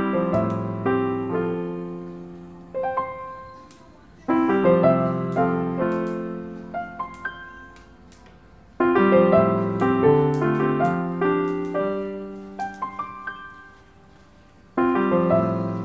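Background piano music: a full chord is struck and left to ring and fade four times, with a few lighter single notes in between.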